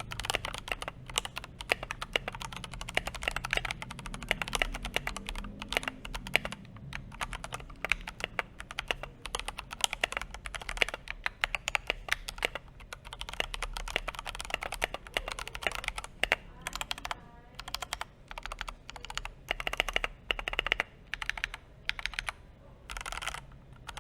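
Typing on an Akko 3068B 65% mechanical keyboard with Akko CS Jelly Purple switches and ASA-profile PBT keycaps: fast, continuous keystrokes that thin to a few separate strokes near the end.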